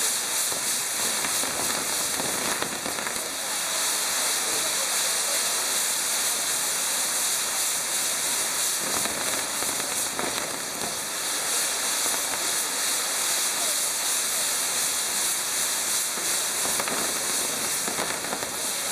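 Maltese ground fireworks (nar tal-art): revolving wheel pieces firing jets of sparks with a steady, dense hiss and fine crackle, the rush growing fuller about halfway through.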